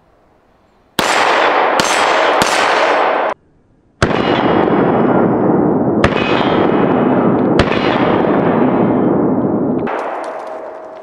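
Gunshots from an Arsenal Strike One Speed 9mm striker-fired pistol firing Federal HST hollow-point rounds. Three quick shots with long echoing tails, then after a sudden break three more spaced shots about 4, 6 and 7.5 seconds in, the rounds feeding and cycling without a hitch.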